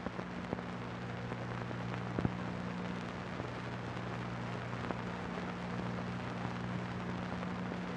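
Old film soundtrack noise: a steady hiss and low hum with scattered crackles and a few sharp clicks, the clearest about two seconds in.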